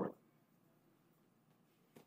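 The tail end of a man's spoken question, then near silence: faint room tone.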